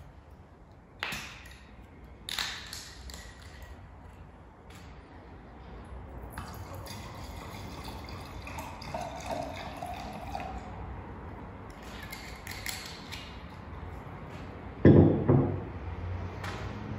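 Two sharp clicks as a wine bottle is opened. Then white wine is poured into a stemmed wine glass for several seconds, with a gurgling splash as the glass fills. Near the end the bottle is set down on a wooden table with a loud thud, the loudest sound here.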